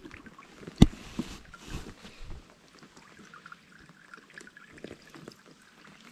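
Crayfish trap being hauled out of the water: one sharp knock about a second in, a few lighter knocks over the next second and a half, then water dripping and trickling.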